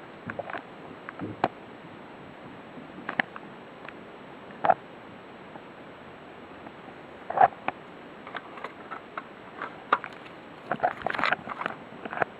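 Scattered light clicks, taps and knocks of something being handled, over a steady background hiss, with a busier run of clicks near the end. No alarm sounds.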